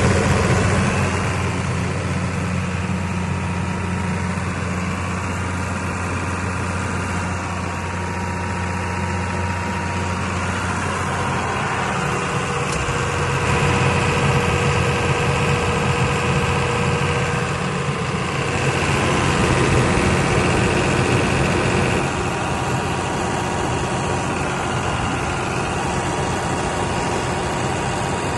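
Multiquip DCA100 diesel generator set, driven by a John Deere 6068 inline-six diesel, running steadily on a test run, its engine note shifting slightly about twelve seconds in and again about twenty-two seconds in.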